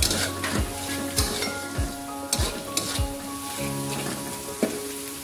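Corn and Chinese sausage sizzling as they are stir-fried in a wok, a metal spatula scraping and knocking against the pan several times.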